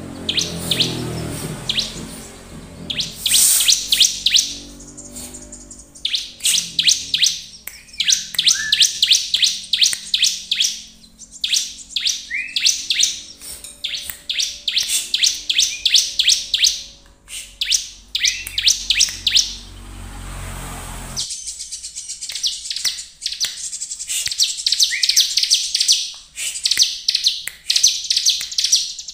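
Bar-winged prinia (ciblek) in full song: fast, high, repeated chirping phrases a few seconds long, broken by short pauses.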